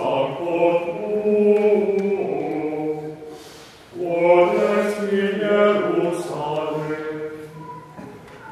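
Liturgical chant sung by low male voices in two phrases of a few seconds each, with held notes, fading out near the end.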